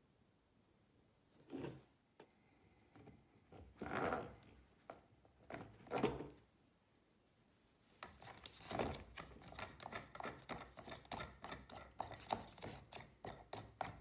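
A few separate scrapes of a plastic field box being handled. Then, about halfway through, a steady run of rapid small clicks begins as a threaded U-bolt and its nut are worked in the hole drilled through the box lid.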